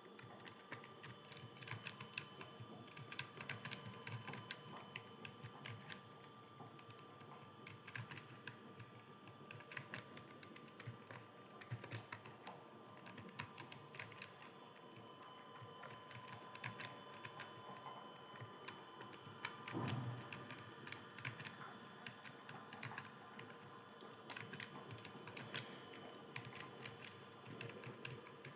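Computer keyboard being typed on continuously: a fast, irregular stream of keystroke clicks, with one louder dull thump about twenty seconds in.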